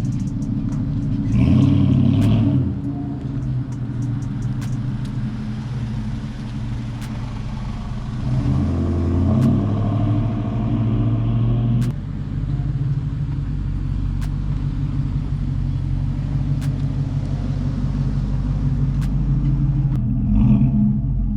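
A motor vehicle's engine running steadily with a low rumble; its pitch shifts a little around the middle, and there are a few small clicks.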